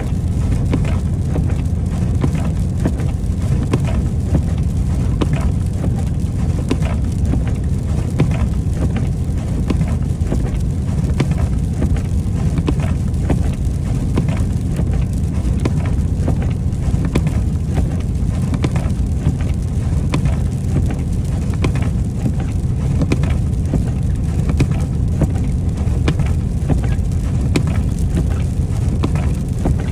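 Cab of a semi truck on the move: a steady low rumble of engine and road noise, with irregular ticking and patter of freezing rain and ice striking the truck in an ice storm.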